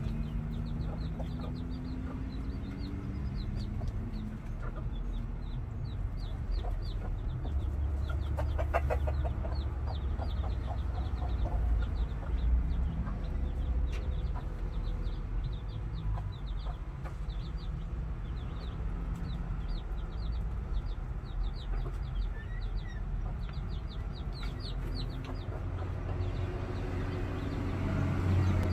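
Chicks peeping continuously in short, high, falling cheeps, with hens clucking now and then, over a steady low rumble.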